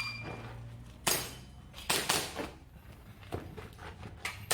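A shot-timer start beep ends just after the start, then an airsoft pistol fires a string of about five shots at irregular spacing, each a sharp crack.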